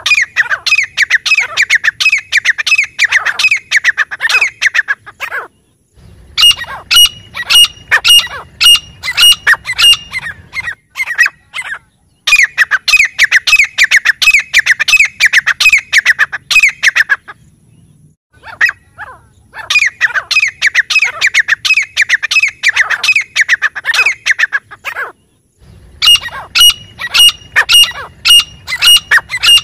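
Grey francolin calling: loud bouts of rapid, sharp, repeated high notes, each bout lasting about five seconds with short pauses between.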